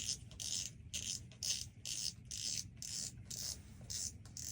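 A series of short scraping strokes, about two or three a second and unevenly spaced.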